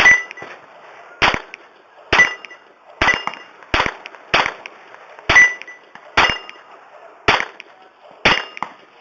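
A firearm fired about ten times in slow succession, roughly one shot a second, each a sharp crack with a short tail. Fainter cracks fall between some of the shots.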